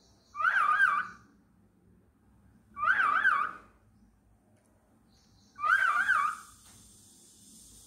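Cockatiel calling three times, about two and a half seconds apart, each a short warbling call whose pitch wavers quickly up and down.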